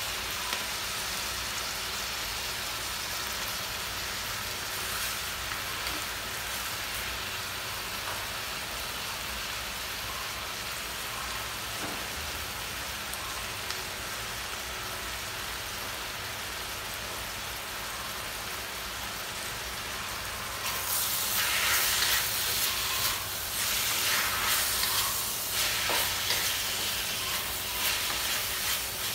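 Chicken breast pieces, onion and bell pepper frying in a stainless steel wok with a steady sizzle. About two-thirds of the way through, stirring with a wooden spatula brings louder, uneven surges of sizzling.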